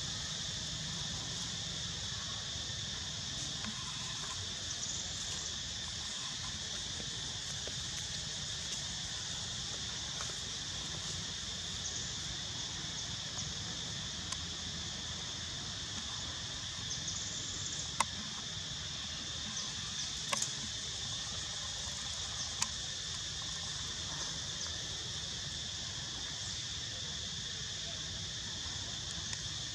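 Steady chorus of insects, a constant high-pitched buzz with a second, shriller layer above it, and a few sharp clicks around the middle.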